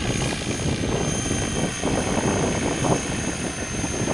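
Radio-controlled model helicopter in flight, its rotor and motor running steadily with a high, constant whine over the rotor noise.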